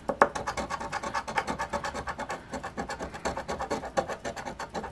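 Scratching the coating off a $20 Cash Explosion scratch-off lottery ticket in rapid, even back-and-forth strokes.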